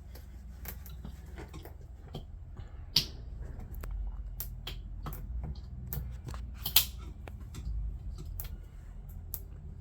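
Scattered small clicks and taps of a screwdriver prying at a plastic piece on an angle grinder's head, two of them louder, about 3 and 7 seconds in. A steady low hum runs underneath.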